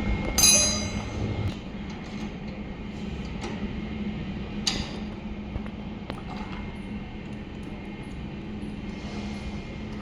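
Welding machine humming steadily with a constant electrical drone. A short metallic ring comes near the start and a single click about halfway through.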